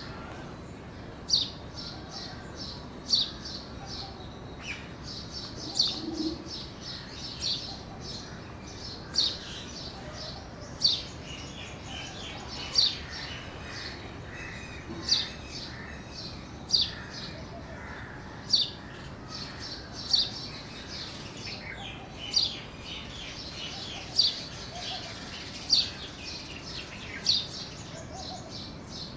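House sparrow chirping: short, loud single chirps repeated about every two seconds, over fainter chirping from other birds.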